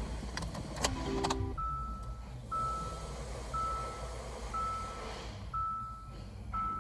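2015 Hyundai Santa Fe switched on: a few clicks and a short low chime, then the instrument cluster's warning chime beeping about once a second, six times.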